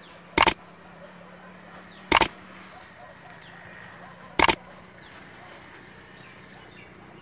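Three sharp mouse-click sound effects, roughly two seconds apart, from an animated like, subscribe and bell-button overlay. Each click is short and doubled. Under them runs a faint steady outdoor background.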